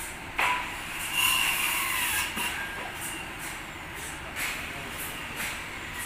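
Huge teak log being levered into place on a sawmill log carriage with long wooden poles. A sharp knock comes about half a second in, then a brief high squeal, with a few more knocks later over steady mill noise.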